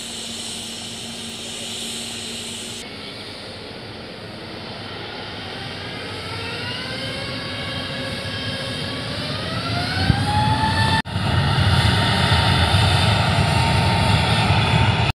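Airbus A320-family airliner's twin turbofan engines spooling up for the takeoff roll. An engine whine rises in pitch over several seconds and then levels off at takeoff thrust, with a loud low rumble that builds from about ten seconds in. The sound drops out for an instant shortly after.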